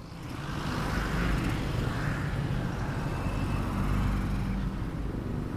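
Motorcycle engine running while riding, with wind rushing over the helmet-side external mic; the sound builds over the first second, then holds steady.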